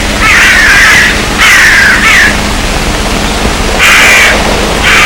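Crows cawing: a few long, harsh caws in quick succession, a pause of over a second, then more caws near the end.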